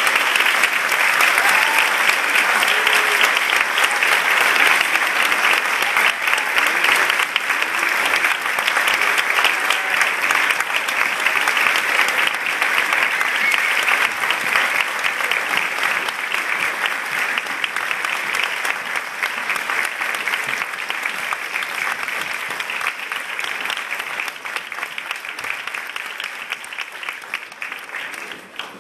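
Audience applauding with dense, steady clapping that thins out and fades over the last several seconds.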